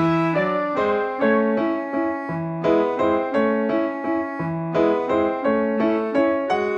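Background piano music: a light melody of struck notes, a few to the second, over a low accompaniment.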